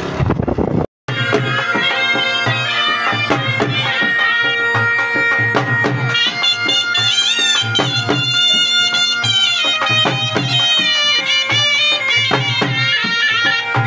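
Background folk music with a steady drum rhythm and a bending wind-instrument melody, starting about a second in after a brief second of rushing noise and a short dropout.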